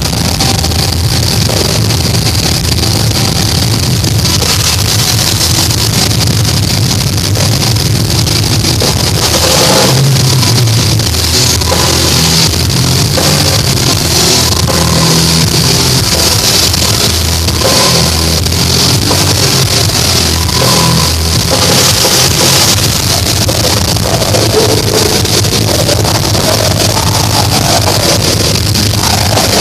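A heavy metal band playing loud, live, as a continuous dense wall of distorted guitars and drums, running at the same level throughout.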